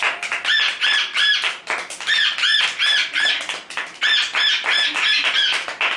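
A person's voice imitating a bird's squawk: high calls, each rising then falling, repeated about three a second in runs of five or six with short pauses between the runs.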